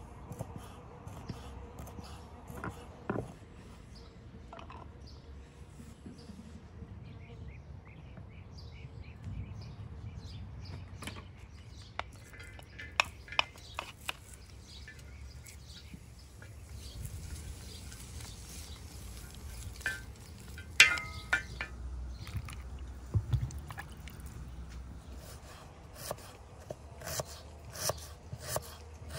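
Knife cutting on a wooden chopping board: scattered sharp taps as raw beef heart is diced, and a quicker run of taps near the end as an onion is sliced, over a low steady outdoor background with birds chirping now and then.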